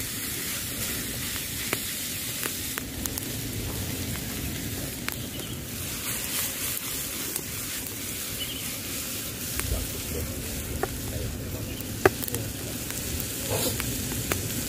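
Chopped moray eel meat sizzling steadily in a frying pan over a wood fire, with scattered clicks as it is stirred and tossed, one sharper click about twelve seconds in.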